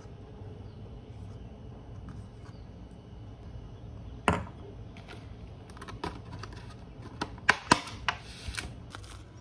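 Kitchenware handled on a wooden cutting board: a single sharp knock about four seconds in as the glass bowl is moved, then a run of clicks and crackles near the end from a plastic strawberry clamshell being set down and handled, over a low steady hum.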